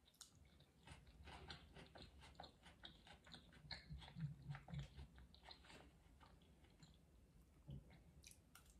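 Faint close-up chewing of a mouthful of pickled ginger: many small wet clicks from the mouth, uneven in rhythm.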